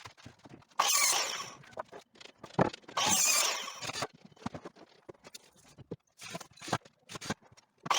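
Cordless drill-driver driving screws into wooden battens: two runs of about a second each, a whine that drops in pitch as the screw goes in, with scattered knocks of wood and tools between them.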